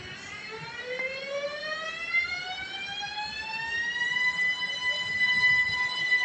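ÖBB Cityjet (Siemens Desiro ML) electric multiple unit's traction motors whining as the train pulls away. The pitch rises smoothly for about four seconds, then holds steady.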